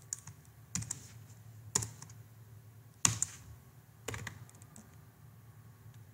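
Computer keyboard keystrokes and mouse clicks: about half a dozen separate clacks at uneven intervals, the loudest about three seconds in, over a faint steady low hum.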